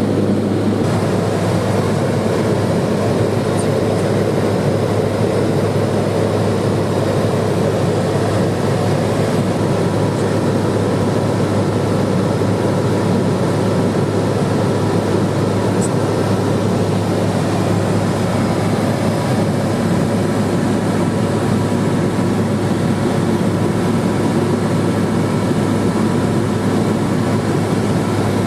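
Steady, unchanging drone of a Cessna 210 Silver Eagle's single turboprop engine and propeller in flight.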